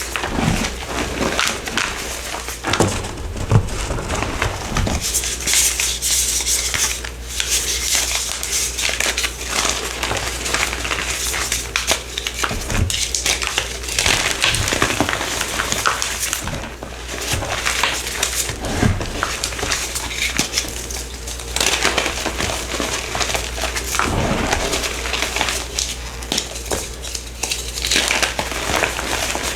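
A purple powdery block being crushed and crumbled, giving a dense, continuous crackling crunch made of many small crumbling clicks.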